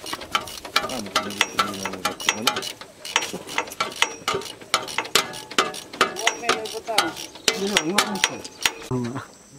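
Rapid metallic clicking of a ratchet mechanism being worked by hand on an off-road truck's front bumper, several clicks a second, with people talking underneath.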